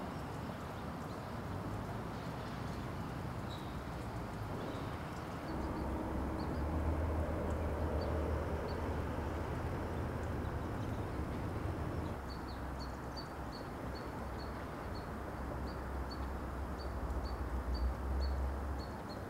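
Outdoor ambience with a steady low rumble and a bird chirping. Its short, high chirps come a few at a time early on, then about twice a second through the second half.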